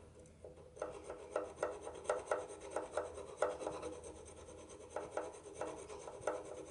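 Thin points file scraping back and forth between a magneto's contact-breaker points, in short strokes at about four a second with a faint metallic ring. The strokes pause for about a second just after the middle, then start again. It is filing corrosion off the top point.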